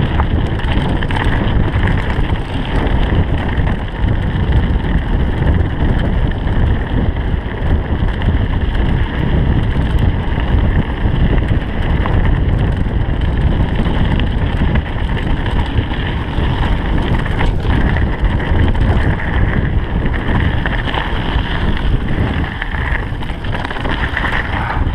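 Wind rushing over a GoPro's microphone as a mountain bike descends fast on a gravel forest track, mixed with the bike's tyre noise and rattle over the stones.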